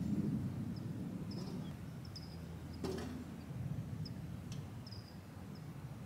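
Open-air ambience: a low, uneven rumble with scattered short, high chirps. A single sharp knock comes about three seconds in.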